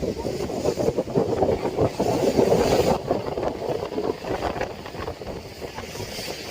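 Wind buffeting the microphone over the running noise of a tour boat, rough and gusty, loudest about two to three seconds in.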